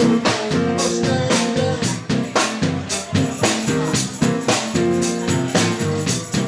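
Live rock band playing, with a drum kit keeping a steady beat under sustained pitched instrument notes.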